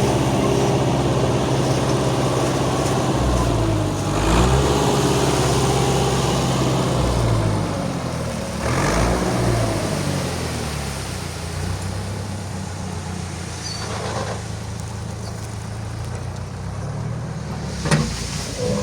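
Truck engine running, revved up and down twice, then settling to a steady idle.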